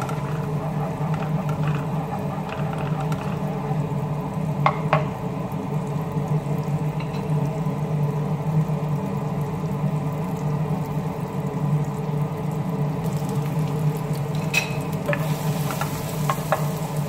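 Food sizzling in a frying pan over a steady hum, with a few sharp clinks of a utensil against the pan, about five seconds in and twice near the end.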